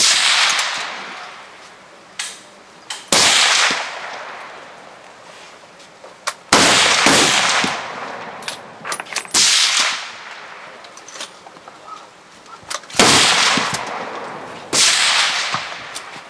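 Rifle shots fired at irregular intervals, about six loud reports, each followed by a ringing echo that dies away over about a second, with a few fainter knocks in between.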